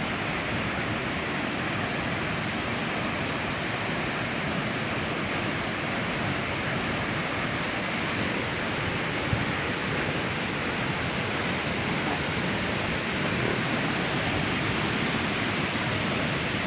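Rushing water making a steady roar that does not change.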